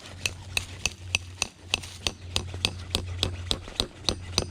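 A run of sharp, evenly spaced clicks, about three a second, over a low steady hum.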